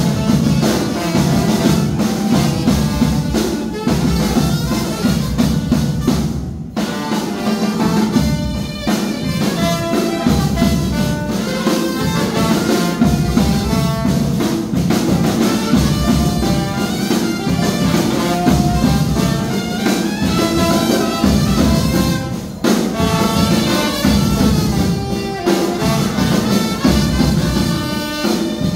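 Funeral brass band playing: trombone and saxophone carry the melody over a steady snare drum and bass drum beat. The music breaks off very briefly about seven seconds in and again about 22 seconds in.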